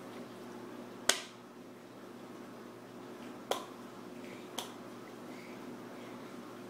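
Three short, sharp clicks spaced a second or two apart, the first the loudest, over a faint steady hum.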